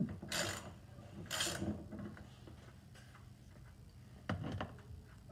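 Ratchet wrench with a 10 mm socket loosening a side-mirror mounting bolt: two short runs of rapid pawl clicking about a second apart, then a few light clicks near the end.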